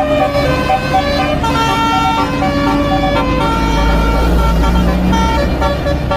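Multi-tone musical 'telolet' bus horn (basuri type) playing a melody, its notes changing several times a second, over a low engine rumble.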